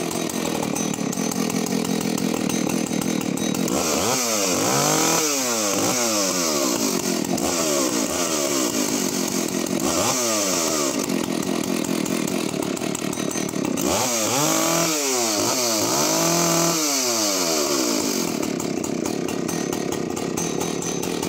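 Husqvarna 285CD two-stroke chainsaw running with no load, idling steadily and revved up several times. Each rev sweeps up to a high scream, holds briefly, and falls back to idle.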